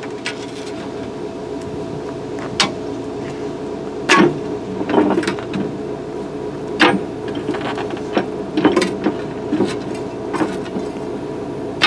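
A steel rock bar prying and knocking against a steel bucket shroud, giving sharp metal clanks every second or two with short scraping squeals, over a steady engine hum.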